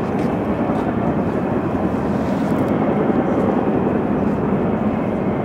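Steady outdoor rumble of a city street, an even wash of noise with no distinct sounds standing out.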